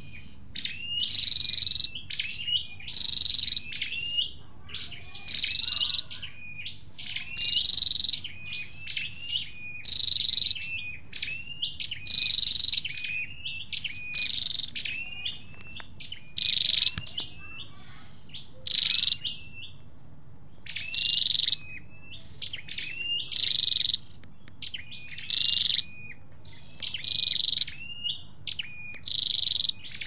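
A red-capped small songbird, the Vietnamese 'sâu đầu đỏ', singing a loud, high phrase with quick falling notes, repeated about every two seconds. A faint low hum lies underneath.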